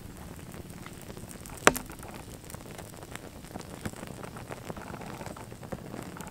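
Flames burning on crashed toy cars: a steady hiss with many small crackling pops. There is one sharp, loud crack about a second and a half in.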